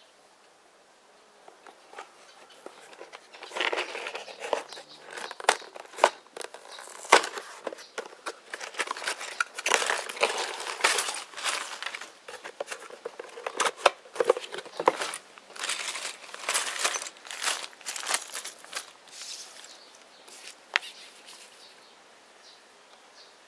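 Crinkling and rustling of sealed plastic bags of building bricks, with the cardboard box being handled and tipped out, full of sharp crackles and clicks. It starts about two seconds in and dies away near the end.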